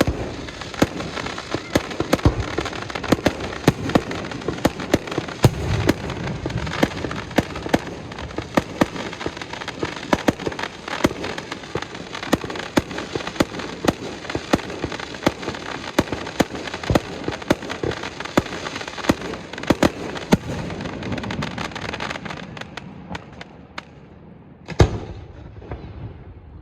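Fireworks going off in a dense, continuous run of sharp bangs over crackling. They thin out about 22 seconds in, with one last loud bang near the end.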